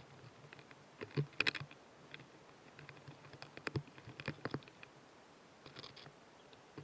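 Irregular small clicks and crackles from close-miked narrow-winged mantises, coming in short clusters about a second in, around the middle, and near the end.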